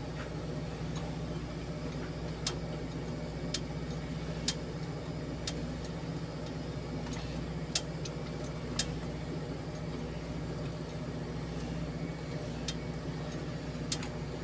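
A steady engine hum, with sharp metallic clicks at uneven intervals, about eight in all, as hand tools work on parts in a crawler crane's engine bay.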